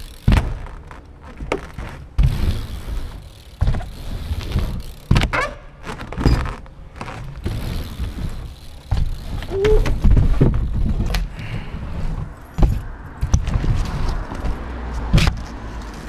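BMX bikes rolling and landing on a plywood ramp: a low rumble of tyres on the boards broken by repeated knocks and thuds of wheels and frames hitting the wood.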